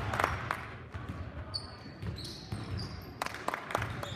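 A basketball bouncing on a hardwood gym floor, a few sharp knocks, with short high squeaks and the murmur of voices echoing in the large gym.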